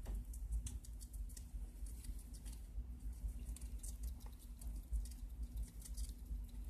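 Pet rat nibbling salad from a glass bowl: quick, irregular crisp clicks of its teeth working the shredded leaves, over a steady low background hum.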